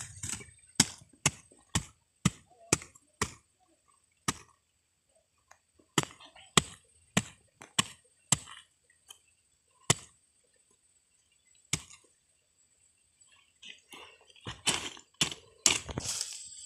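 Small curved hand hoe chopping into soft garden soil and scraping it up around an eggplant plant. Sharp strokes about twice a second at first, then sparser single strikes with a pause, then a quick run of chops and scrapes near the end.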